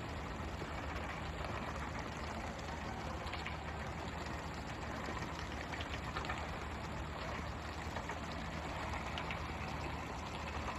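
Steady rain-like hiss of a pole-and-line fishing boat's water sprayers spraying over the sea, with the boat's engine humming steadily underneath and a few faint clicks and slaps.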